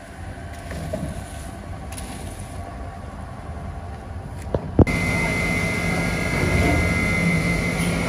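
Low rumbling noise, then a sharp click about five seconds in and the steady hum of factory machinery with a high, even whine.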